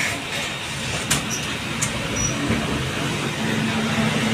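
Steady running noise of a passenger train, with two sharp clicks between one and two seconds in and a faint steady hum coming in near the end.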